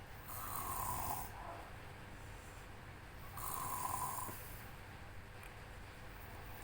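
A sleeping 9-year-old boy snoring heavily while ill: two snores about three seconds apart, in an even breathing rhythm.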